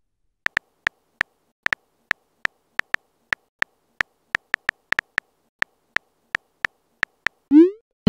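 Keyboard tapping sound effect from a texting app: a quick, uneven run of short clicks, about three a second, one per typed letter. Near the end comes a rising swoosh.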